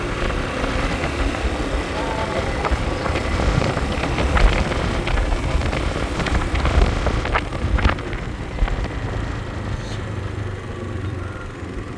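Motor scooter running along a road, its engine and tyre noise mixed with heavy wind rumble on the microphone, with a few short knocks and rattles in the middle.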